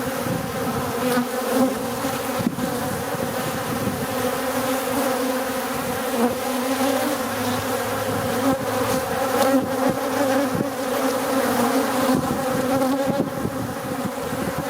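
A dense swarm of bees buzzing around a beehive's entrance: a steady hum in several pitches at once, with brief louder flickers as bees pass close.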